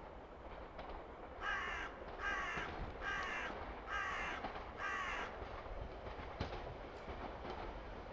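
A crow cawing five times in an even series, just under a second apart, over a faint low rumble.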